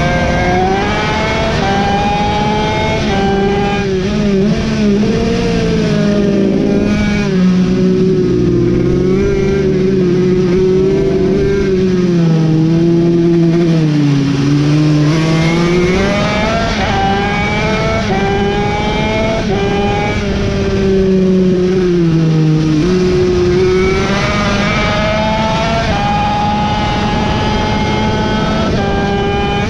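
Racing mini bike's engine heard onboard at race pace, revving up through the gears with a sudden drop in pitch at each shift. Near the middle it falls away into a long dip and climbs again, as the rider slows and drives out of a corner.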